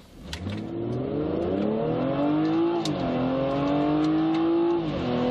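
A 2016 BMW 340i xDrive's 3.0-litre turbocharged inline-six accelerating hard from a standstill, heard from inside the cabin. The engine note climbs steeply, drops at an upshift of the eight-speed automatic about three seconds in, then climbs again and drops at a second upshift near the end.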